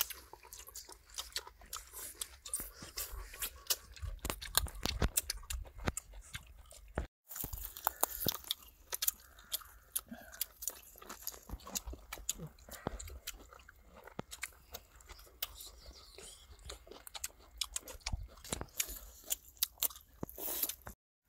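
People eating, chewing and crunching food, with many sharp, irregular clicks.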